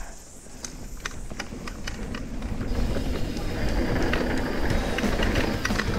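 Mountain bike rolling down a dirt trail: tyre noise on dirt and wind buffeting the bike-mounted microphone, getting louder as the bike picks up speed, with a few sharp clicks in the first two seconds.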